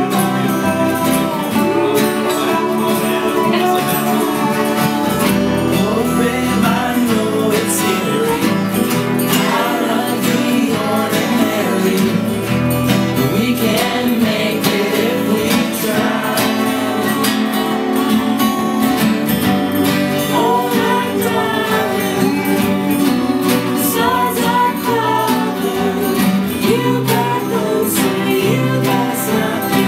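Live acoustic band playing a song: several acoustic guitars strumming and picking, with a resonator guitar in the mix and a woman singing the melody.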